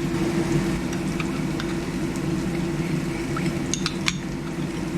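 A steady low hum with a light sizzle of garlic and fermented black beans frying in the pan, and a few quick clinks of a spoon against a bowl about three to four seconds in as cornstarch is stirred into the soy sauce.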